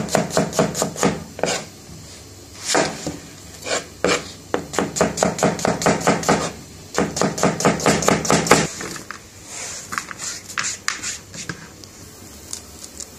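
Kitchen knife chopping onions on a cutting board in quick runs of strokes, about five a second, with short pauses between runs. After about nine seconds the cuts become lighter and more spaced out.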